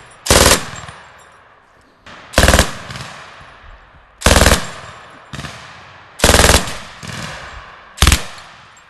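Belt-fed machine gun firing short bursts, five of them about two seconds apart, each a quick string of shots lasting under half a second and trailing off in a long echo.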